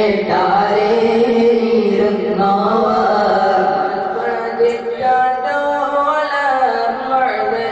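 Group of boys chanting a moulid, an Arabic devotional recitation, together in one melodic line, with held, gliding notes.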